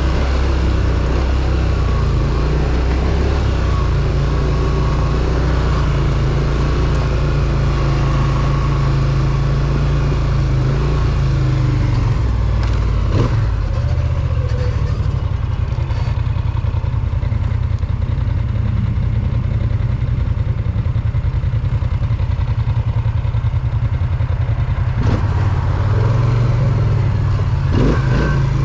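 Polaris Sportsman ATV engine running steadily under way, its pitch shifting slightly with the throttle, with a few sharp knocks along the way.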